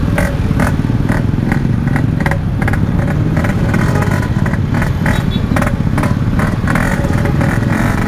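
A Yamaha RX-King's single-cylinder two-stroke engine running at low speed through a Packing Power exhaust, with sharp crackles about three times a second over a steady drone.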